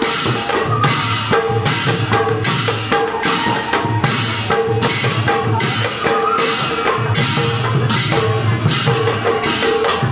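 Khol drums and cymbals playing a fast, driving dance rhythm, with cymbal clashes about twice a second.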